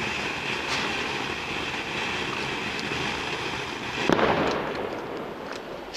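Ground fountain firework spraying sparks with a steady hiss, then a sudden louder burst of crackling about four seconds in that fades away.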